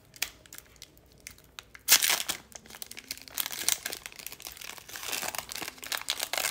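Foil wrapper of a trading-card pack being handled and torn open: a few faint crackles, then a sudden loud rip about two seconds in, followed by steady crinkling of the foil.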